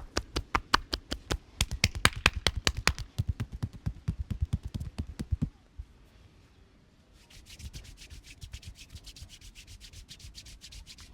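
Massage strokes: hands striking the body in a fast run of sharp slaps, about five or six a second for over five seconds. After a short pause, a quicker, lighter run of strokes with a thinner, hissier sound.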